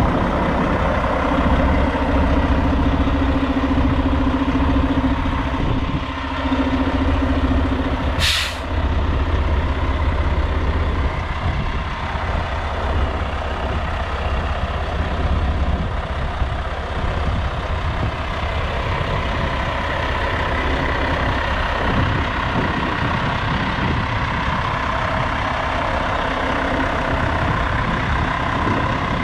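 Mack Granite roll-off truck's diesel engine idling steadily, with one short hiss of compressed air released about eight seconds in.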